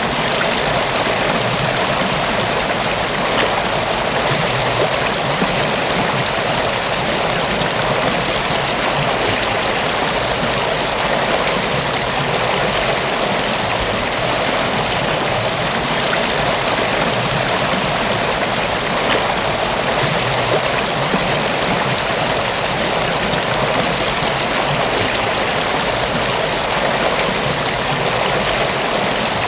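Mountain waterfall and its stream of rushing water, a steady, even rush with no change.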